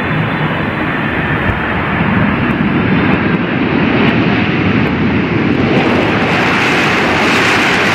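Jet airliner engines: a rushing noise that swells steadily louder as the aircraft draws near, with more hiss coming in over the last couple of seconds.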